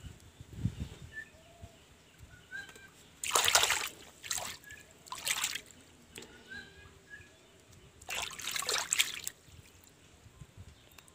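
Water splashing and trickling in a basin as hands rinse and break apart small crabs, in a few short bursts: the loudest about three seconds in and again near the end.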